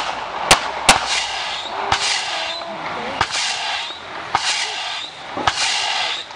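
Aerial fireworks shells bursting: three sharp bangs in the first second, then a few more spread through the rest, with stretches of hiss between them.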